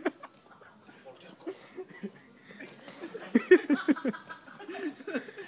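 Young people's voices: short shouts and laughter that are loudest about three to four seconds in.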